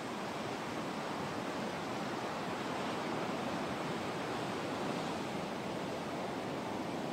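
Steady rush of surf breaking close to the beach, a continuous wash of whitewater with no distinct single crash.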